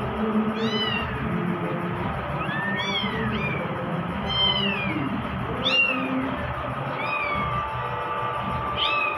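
Kittens mewing repeatedly with short, high-pitched meows, about one or two a second, some calls overlapping.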